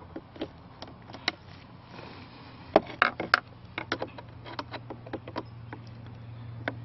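Irregular clicks and knocks of a screwdriver and hands working at the plastic dash trim and instrument cluster of a 1999 Land Cruiser, loudest about three seconds in. A low steady hum underneath grows slightly louder near the end.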